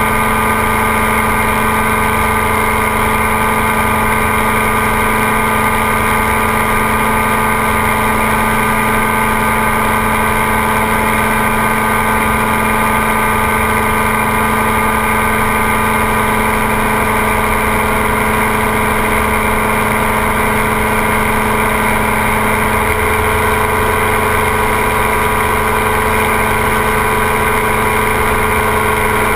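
Ultralight trike's engine and propeller running at a steady cruise setting, a constant, even-pitched drone, with wind noise underneath.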